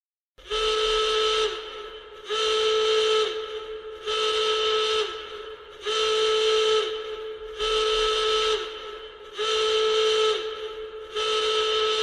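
Emergency alert system (EAS) alarm tone: a loud, horn-like pitched blast repeating about every two seconds. Each blast is held for just over a second and drops slightly in pitch as it cuts off.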